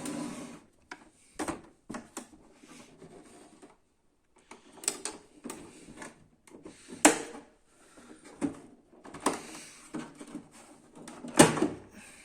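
Plastic clicks, snaps and knocks as the latches of a Canon MF4410 laser printer's plastic side cover are worked free, with scraping and handling noise in between. Two sharp snaps, about seven and eleven seconds in, are the loudest.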